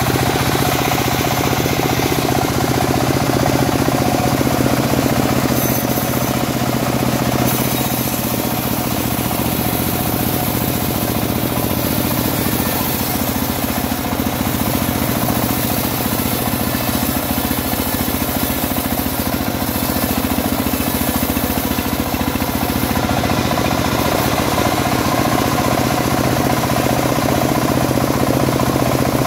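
Engine of a homemade bandsaw sawmill running steadily at an even speed, not yet under cutting load.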